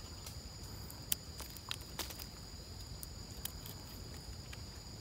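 Insects trilling steadily at a high pitch in the background, with a few sharp snaps and rustles of footsteps on the forest floor, about one, two and three and a half seconds in.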